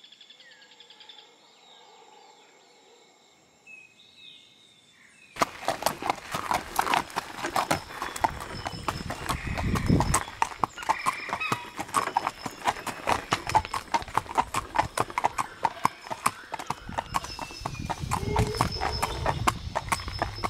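A harness horse's hooves clip-clopping in a quick, even rhythm as it pulls a sulky, heard from the sulky seat behind it. They start suddenly about five seconds in, after a faint, quiet opening.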